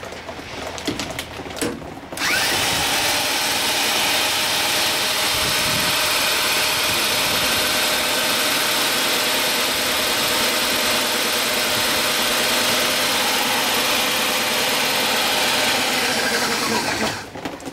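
An electric drill on the flywheel nut spins a 1963 Johnson 5½ hp two-stroke outboard over: a steady whir that starts abruptly about two seconds in and stops shortly before the end. The motor is being cranked to try to make it fire, and it does not catch.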